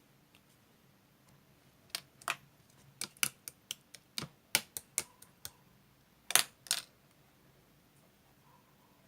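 An irregular series of about fifteen short, sharp clicks or taps, starting about two seconds in and stopping near the end, the loudest two coming close together toward the end.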